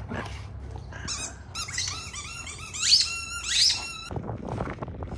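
Dog whining in high-pitched squeaks: a run of short wavering squeaks from about a second in, with two louder rising squeals around three seconds in.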